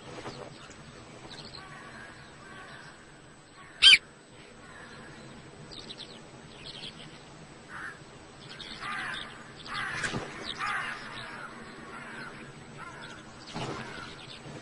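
Wild birds giving harsh, crow-like calls in short bouts, with one loud, sharp call about four seconds in and a busier run of calls a few seconds later.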